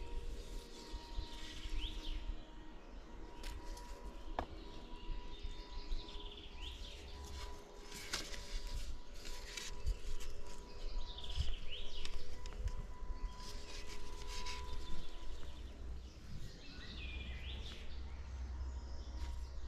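A bird repeats a short rising call every few seconds over rustling and light knocks from wooden sticks being handled on dry leaves. A faint steady hum runs underneath.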